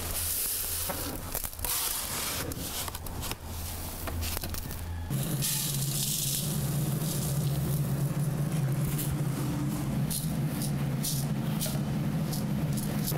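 Coarse salt being scooped from a bin into a steel tray, grains rattling and scraping. About five seconds in, a steady low hum sets in as the salt is poured into a large steel wok on a gas stove and then raked around by hand, grains scratching against the metal.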